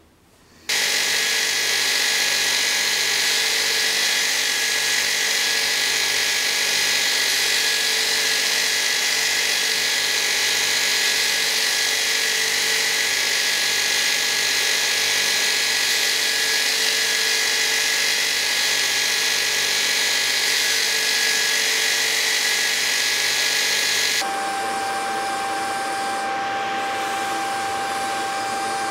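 Belt grinder running steadily, a constant motor-and-belt whine that starts abruptly just under a second in. About 24 seconds in it switches abruptly to a somewhat quieter steady machine hum carrying one clear mid-pitched tone.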